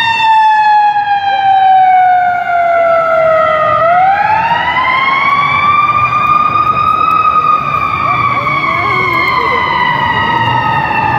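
Ambulance siren on a slow wail. Its pitch falls steadily for nearly four seconds, rises again over the next three, then slowly falls once more.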